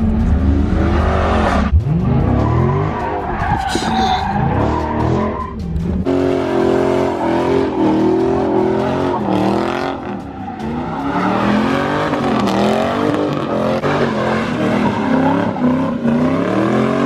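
Charger Scat Pack's 392 (6.4-litre) HEMI V8 revved hard, its pitch sweeping up and down again and again, with tires skidding.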